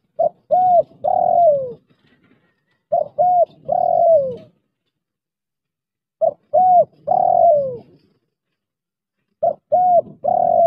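Spotted dove (tekukur) kept as a trained decoy bird, cooing its full 'banggo' call four times about three seconds apart. Each call is two short coos and then a longer coo that drops in pitch at the end.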